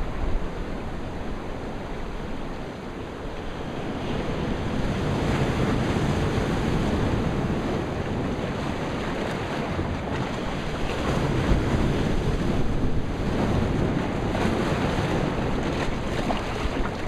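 Ocean surf washing against a rocky shoreline outcrop, swelling louder in two long surges, with wind buffeting the microphone.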